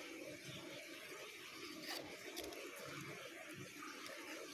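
Faint handling noise of fingers working double-sided tape and its backing paper on a small model plane part, with a light tick about two seconds in.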